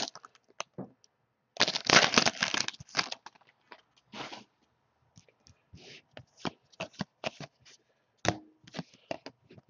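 Basketball trading cards being shuffled through by hand: a quick run of card-on-card rustling about two seconds in, then scattered single clicks and snaps as the cards are slid off the stack one at a time.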